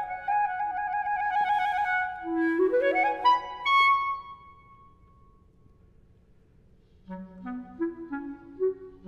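Unaccompanied clarinet: a held high note that wavers, then a quick rising run up to a high note that dies away. After about three seconds of near silence, quick, short notes begin in the low register.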